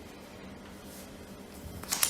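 Quiet room tone with a faint steady low hum, then a brief sharp handling noise just before the end.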